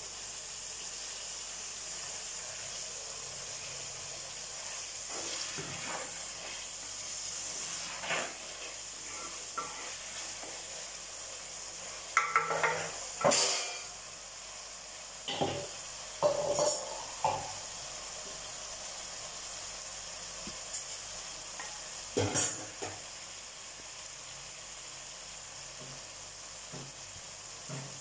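Onions and tomatoes sizzling in oil in a clay pot as they are sautéed down to a pulp, a steady hiss. A wooden spatula stirs and scrapes against the pot in short bursts, mostly around the middle and again about three-quarters of the way through.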